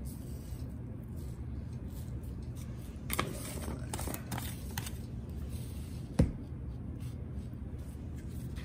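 Spice containers handled and shaken over a chicken while seasoning it: scattered light clicks and rattles, then one sharp knock a little after six seconds in, over a low steady hum.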